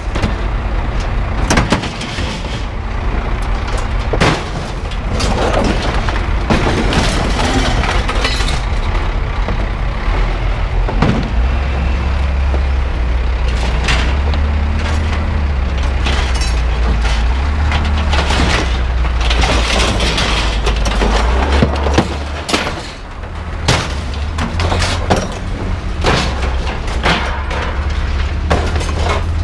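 Pieces of scrap metal thrown out of a pickup bed, clanging and crashing onto a pile in many separate hits, over a steady low engine rumble that grows louder for a stretch in the middle.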